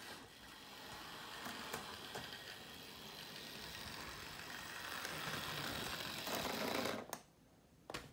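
Hornby D49 model steam locomotive's electric motor and wheels whirring steadily along the track, growing louder, then cutting off suddenly about seven seconds in.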